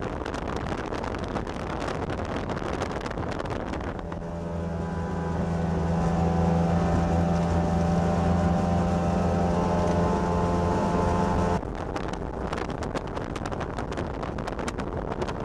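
P1 Panther SuperStock race boat running flat out on its 300-horsepower outboard: wind and water rushing, with a steady high-revving engine note standing out from about four seconds in until it cuts off abruptly about eleven seconds in.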